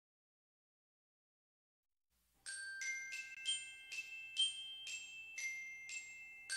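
Dead silence, then about two and a half seconds in a short logo jingle of bright, ringing glockenspiel-like notes, about ten of them struck in quick succession.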